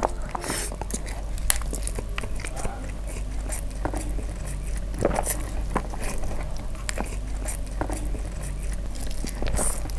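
Close-miked eating of chopstick-fed Mie Kober noodles: slurping and chewing, with irregular wet clicks and smacks, several of them louder than the rest.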